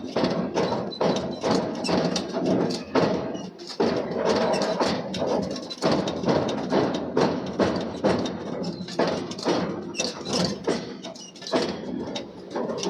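Repeated hammer blows forging a steel billet, a few strikes a second at an uneven pace, over a steady workshop din.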